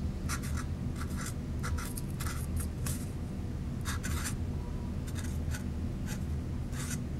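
Felt-tip marker writing on a paper cup: a run of short, irregular scratchy strokes as letters are drawn, with brief pauses between, over a faint steady low hum.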